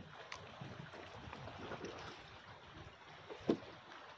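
Faint water lapping and gurgling against the hull of a small wooden boat, with a few light knocks and one brief louder knock about three and a half seconds in.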